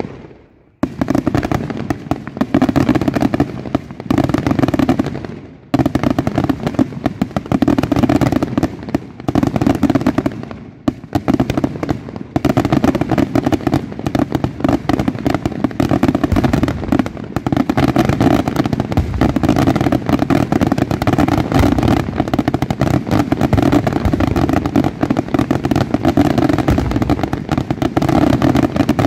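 Daylight fireworks barrage: aerial shells bursting in a dense, rapid run of bangs and crackles, with brief lulls about six and eleven seconds in.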